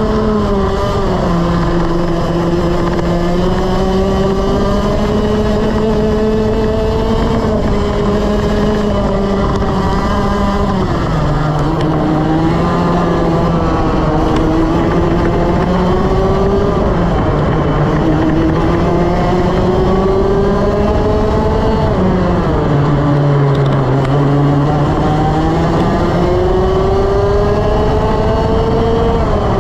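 Onboard sound of a TaG kart's two-stroke engine on a racing lap: its pitch drops sharply four times as the kart slows for corners, about a second in, about a third of the way through, about two-thirds of the way through and at the very end, and climbs steadily again each time on the straights.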